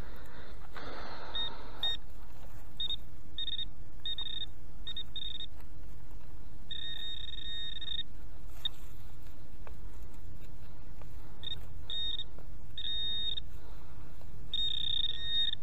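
Metal detector giving repeated electronic beeps over a buried metal target: a high steady tone in irregular bursts, from short blips to beeps about a second long. A brief rustling noise sounds about a second in.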